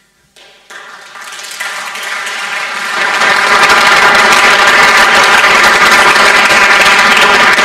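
Audience applauding: the clapping starts thinly about a second in, swells to full, steady applause by about three seconds and keeps going.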